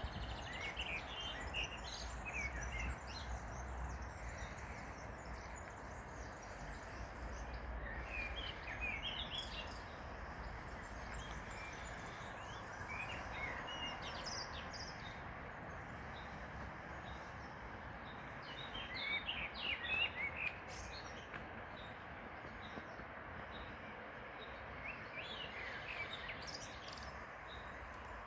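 Steady rush of a flowing river, with small birds chirping in short bursts every few seconds.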